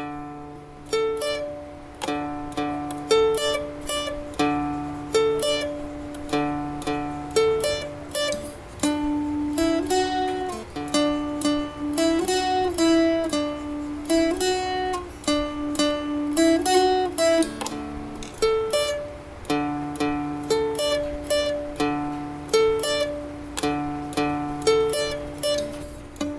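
Seagull Merlin, a small fretted dulcimer, being plucked while a tune is worked out by ear: short melodic phrases repeat and vary in pitch over steady ringing low drone notes.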